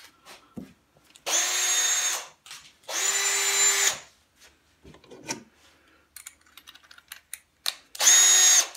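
Cordless drill triggered in three short bursts of about a second each, running at a steady pitch, with small handling clicks between them.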